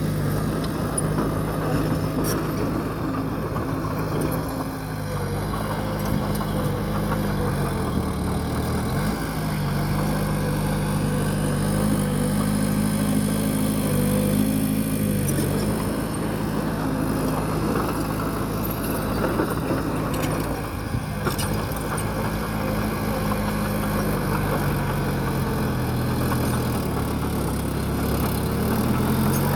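Bulldozer's diesel engine working under load, its note dipping and rising again several times, over a continuous clattering rattle.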